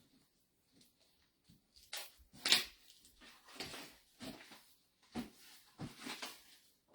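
A series of handling sounds, rustles and knocks of a sheet of cardstock and craft tools being moved on a work table, the loudest about two and a half seconds in.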